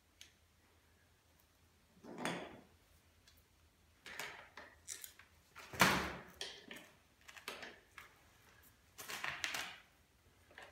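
Metal tools clicking and scraping on a stroller's front fork as the fork nut is tightened with a wrench, in a string of short separate clatters with one sharper knock near the middle.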